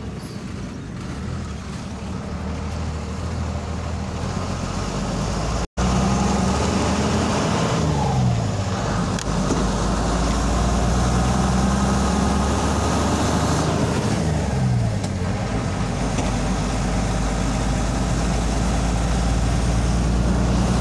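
Vehicle engine running steadily while travelling, its low tone sliding down in pitch twice as it slows or changes gear, with road noise underneath. The sound breaks off for an instant about six seconds in.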